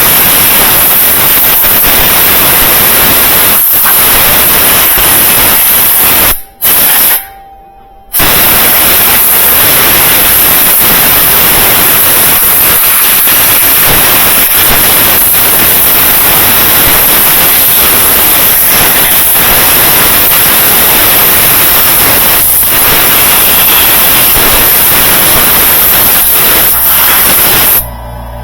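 Compressed air blasting from an air blow gun to clean debris out of a washing-machine motor: a loud, steady hiss that breaks off briefly twice about six to eight seconds in, then stops near the end.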